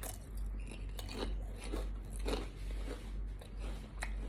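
A person chewing a crunchy ghost pepper chip close to the microphone, with a crisp crunch about every half second.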